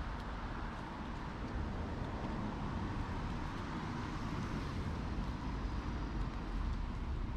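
Steady road traffic noise: an even low rumble with a hiss of vehicles, without clear separate events.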